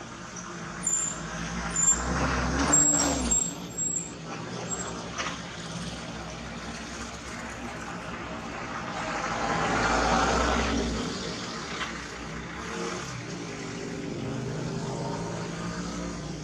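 Motor vehicles passing: the noise of one swells and fades about two to three seconds in, and another builds to a peak around ten seconds in and dies away.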